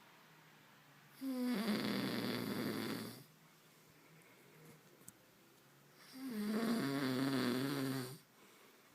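A sleeping child snoring loudly: two long snores about five seconds apart, each lasting about two seconds, with a wavering pitched buzz.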